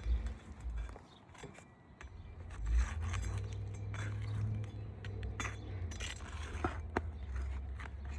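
Metal tools clinking and scraping against asphalt shingles and roofing nails as the nails are pried out of a shingle, in short scattered strokes. A steady low rumble sits underneath from about two seconds in.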